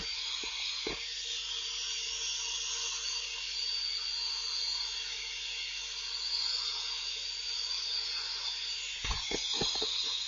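Electric kitchen mixer running steadily at full speed, a high-pitched motor whine with a faint steady hum underneath. A few light clicks near the end.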